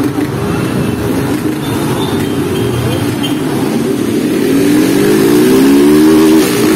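Small motorcycle engines running, with one revving up in a rising pitch from about four and a half seconds in. The rev is the loudest part and falls away just before the end.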